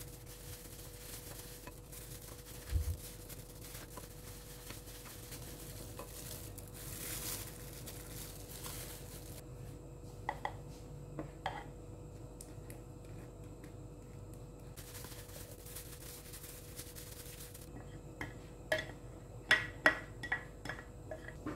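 Dishes and utensils clinking: a couple of light clinks partway through and a quick run of clinks near the end, over a steady faint hum.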